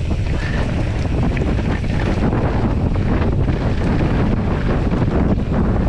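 Wind buffeting the camera's microphone as a mountain bike rides fast downhill on a dirt trail, over a steady rumble of the tyres and small rattles of the bike on the rough ground.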